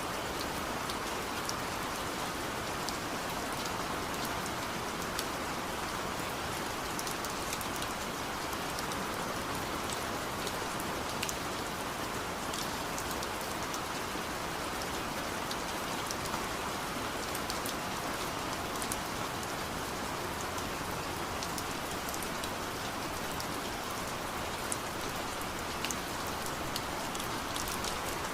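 Steady rain falling, an even hiss with many small, sharp drop ticks on a surface.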